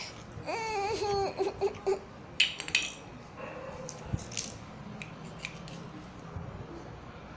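A young child's high, wavering voice for about two seconds, then a few sharp clacks of hard plastic toy food pieces and a toy knife knocking together and on the floor.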